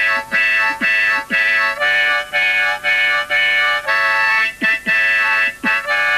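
Harmonica played into a handheld microphone: a tune of held chords in short phrases, each note about half a second, with brief breaks between them.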